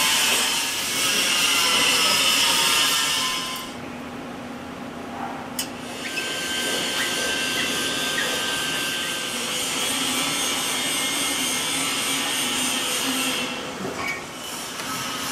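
Metalworking shop machinery running, a dense noisy power-tool whir. It drops away for about two seconds after three and a half seconds in, with a sharp click, then returns steadily and dips briefly again near the end.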